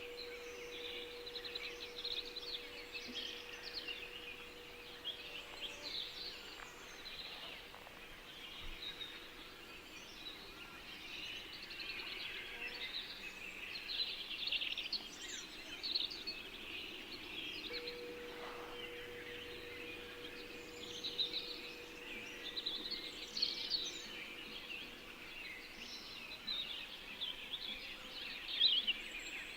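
A dense chorus of small songbirds chirping and singing, layered with a single steady, held meditation tone that fades out about ten seconds in and comes back around eighteen seconds.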